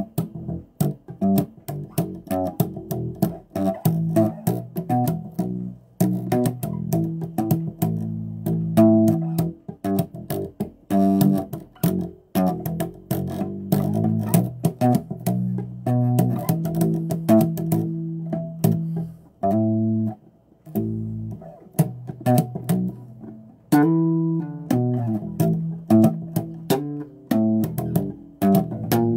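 Electric bass guitar played solo: a continuous run of plucked notes and double-stops with sharp attacks, broken by a few brief pauses.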